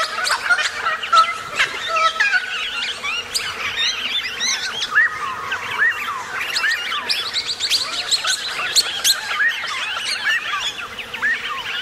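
A dense chorus of many birds chirping and calling at once: overlapping short high chirps and quick whistled glides.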